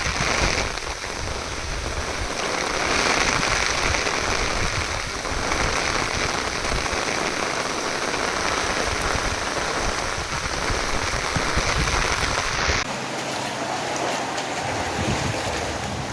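Heavy rain pouring steadily onto surfaces, a dense even hiss. About thirteen seconds in the sound changes abruptly to a thinner, lighter hiss.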